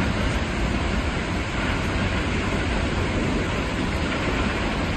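Tall waterfall crashing down into its pool: a steady rush of falling water with a deep low rumble.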